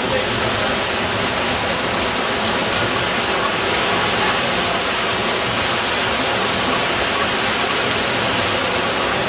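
Steady rush of breaking, churning whitewater in an artificial surf wave pool.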